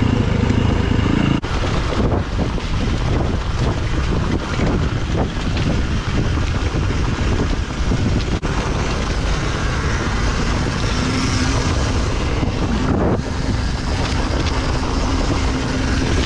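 Dirt bike engine running while riding a rough trail, buried under heavy wind buffeting on the action camera's microphone.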